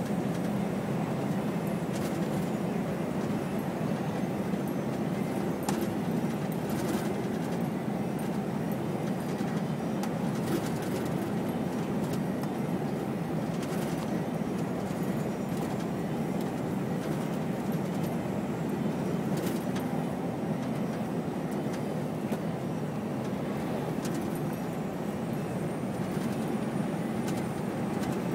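Steady drone of a heavy truck's diesel engine and tyres on a wet road, heard from inside the cab while driving at a constant speed, with occasional light clicks and knocks.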